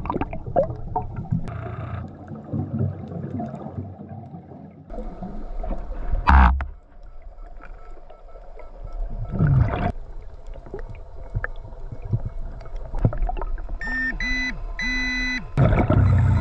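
Scuba diver breathing underwater through a hose-fed regulator: quieter inhales, and exhaled bubbles burbling loudly out every few seconds. Near the end, a few short electronic beeps from the underwater metal detector.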